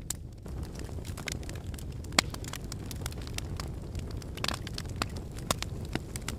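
Fire in a fireplace crackling, with irregular sharp pops over a steady low rumble. The loudest pop comes about two seconds in.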